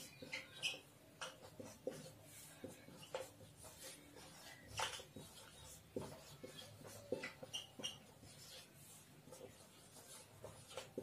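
Faint squeaks and taps of a marker writing on a whiteboard, in short irregular strokes.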